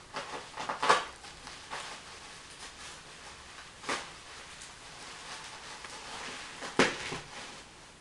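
Plastic packing wrap rustling and crackling as a well-wrapped glass hookah base is unwrapped by hand, with three louder sharp crackles: about a second in, midway and near the end.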